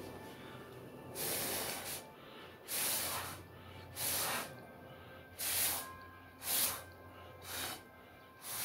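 Short, hard puffs of breath blown by mouth to push wet acrylic paint across the canvas in a Dutch pour, about seven puffs, one every second or so.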